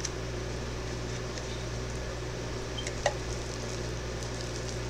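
A steady low hum of background machine noise, with a faint tick at the start and a short sharp click about three seconds in, as the plastic lid and stainless cup of a can cooler are handled.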